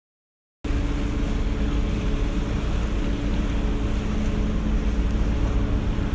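Boat engine running with a steady low drone over a wash of water and wind noise, starting suddenly just over half a second in.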